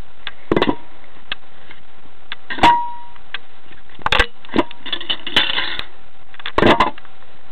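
Pieces of oak firewood knocking against each other and the foundry as they are set in around the crucible: a handful of irregular wooden knocks, one with a short metallic ring, over a steady hiss.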